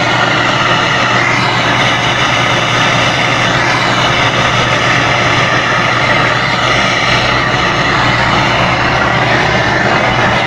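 Brazing torch flame hissing steadily while a joint in an air conditioner's evaporator tubing is being brazed.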